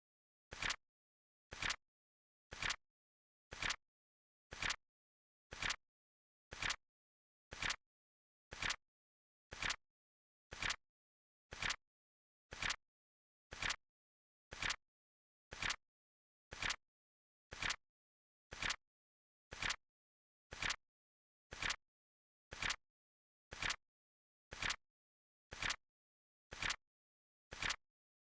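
A flip clock timer's cards flipping once a second, each flip a short, crisp double click.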